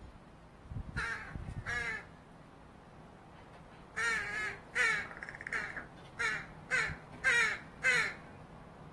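Fledgling Northwestern crow giving begging calls: two harsh, wavering caws about a second in, then a run of about six more in quick succession from about halfway through.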